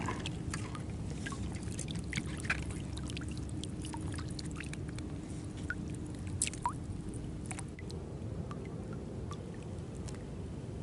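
Water dripping and trickling close by, with many small scattered ticks and splashes over a steady low hum.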